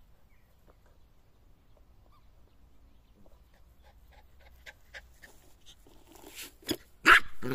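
Jack Russell terrier close to the microphone, faint soft ticks and rustles at first, then a sudden loud bark near the end that runs into a short pitched call.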